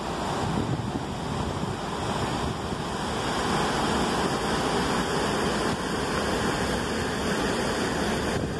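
River water pouring over a stepped concrete weir and churning through rocky rapids: a steady rushing, with wind buffeting the microphone.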